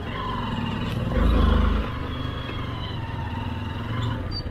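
Motorcycle engine running and revving under load on an off-road trail, its pitch rising and then holding, with a louder low rumble for about half a second a little after the first second.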